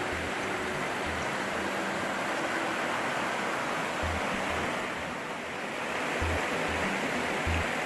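Creek rapids: shallow water rushing steadily over rocks. A low thump repeats under it at an even pace, strongest near the end.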